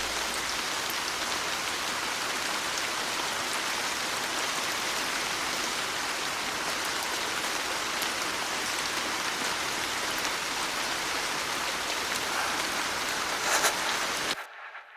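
Steady rain falling, an even patter with a few sharper drops standing out. It cuts off suddenly near the end.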